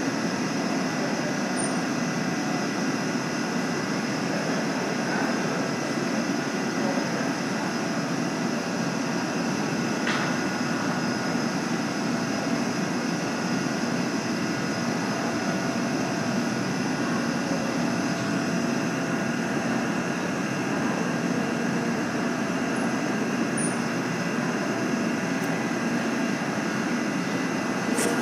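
Steady mechanical drone with several steady humming tones layered over it, unchanging throughout, with a faint click about ten seconds in.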